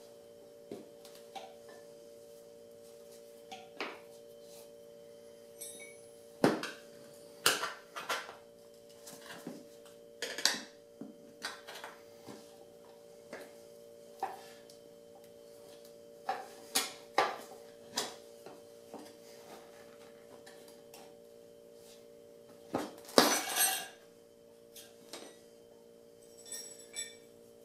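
Steel tire irons clinking and knocking against a spoked aluminium dirt bike rim as the tire bead is levered over the rim lip. The strikes come irregularly, with the loudest run of knocks about three quarters of the way through and a short metallic ring near the end.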